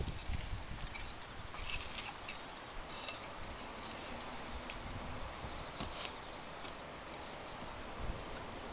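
Scattered light scrapes and clicks of hand tools working on a tiled roof ridge.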